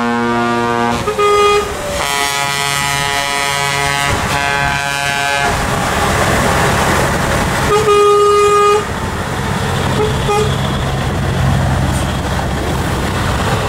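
Truck air horns sounding as a convoy of heavy trucks drives past: several long horn blasts in the first five seconds and another short one about eight seconds in, over the steady rumble of the trucks' diesel engines and tyres.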